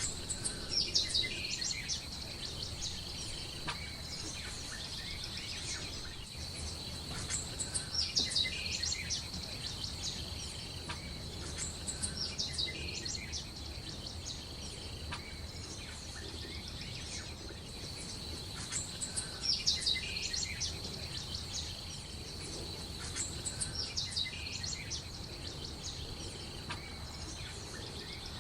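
Birds chirping in short quick clusters every few seconds over a steady, high-pitched insect drone.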